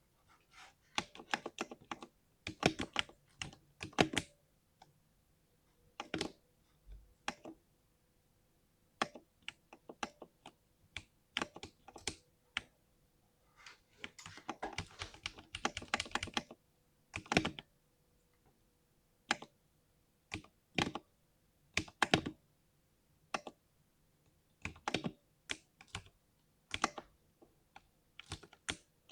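Typing on a 60% mechanical keyboard with a deep "thock" keystroke sound: keys struck in irregular bursts, with a quick, dense flurry about halfway through and short pauses between bursts.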